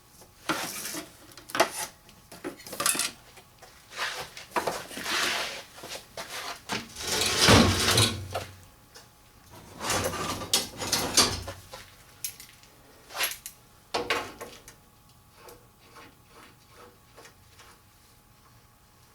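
Metal parts being handled on a workbench: irregular clanks, knocks and scrapes, with a longer, louder scrape about seven seconds in, then it goes quiet for the last few seconds.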